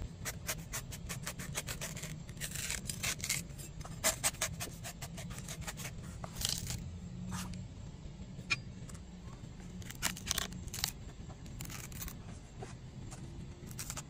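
A broad knife cutting into the husk of a young green coconut: a fast run of sharp cuts and clicks in the first few seconds, then scattered single strikes, over a low steady hum.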